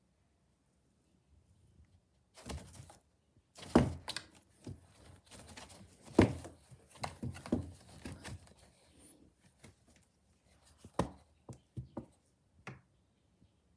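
A run of irregular knocks and taps with some rustling between them, loudest about four and six seconds in.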